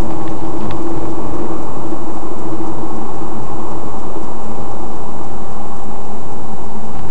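Car driving noise heard from inside the moving car: steady road and engine noise, with a steady hum in the first couple of seconds that then fades.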